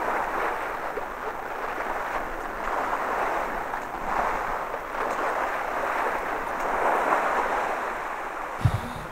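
Rushing sea wash and wind aboard a small sailboat under way in choppy water, the rush swelling and easing every few seconds. Near the end a low gusty buffeting of wind on the microphone comes in.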